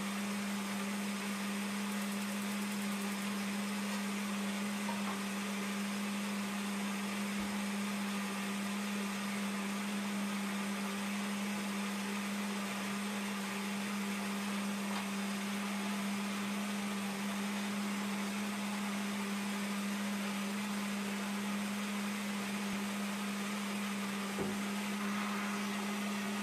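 Electric countertop blender running steadily, beating eggs and sugar for cake batter: a constant, even motor hum. A small knock sounds near the end.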